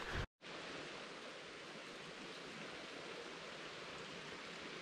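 Steady rush of a shallow river running over stones, an even hiss with no other events, after a brief dropout near the start.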